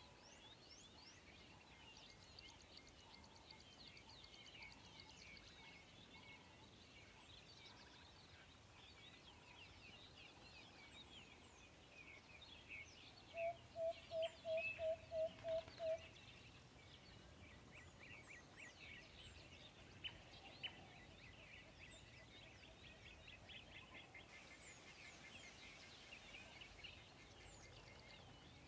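Faint outdoor ambience of birds chirping. About halfway through comes a louder run of about eight short, evenly spaced calls on one pitch, lasting a couple of seconds.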